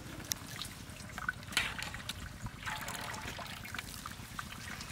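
Water trickling and dripping off a mass of freshly boiled thin noodles as they are lifted from the wok and laid on a woven bamboo tray to drain, with a few light clicks.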